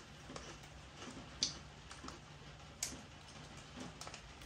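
Faint, sparse crunches and clicks of a person chewing ridge-cut chilli and lime potato crisps. Two sharper crunches come about a second and a half and three seconds in.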